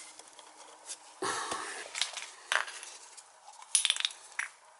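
A few separate knocks and clicks of hard objects being handled, with a quick run of clicks near the end; no motor or burner running.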